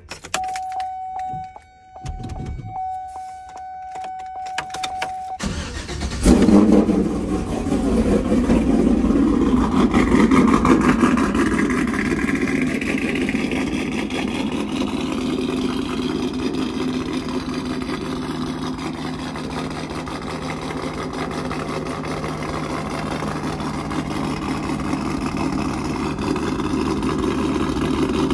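A steady electronic warning tone sounds for about five seconds, with one short break. Then the LS V8 cranks and fires about six seconds in, flares loudly, and settles into a steady deep idle through its resonator-deleted exhaust: an X-pipe feeding Corsa Extreme axle-back mufflers.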